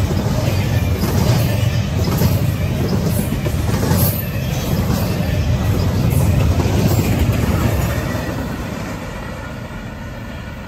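Double-stack intermodal well cars of a freight train rolling past at speed: a heavy rumble of steel wheels on rail with occasional clacks. The rumble fades from about eight seconds in as the train moves away.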